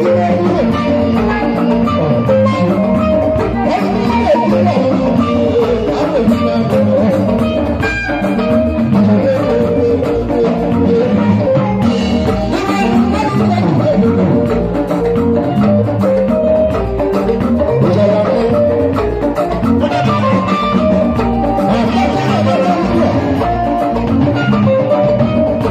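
Live highlife band music with a steady drum-kit beat and keyboard.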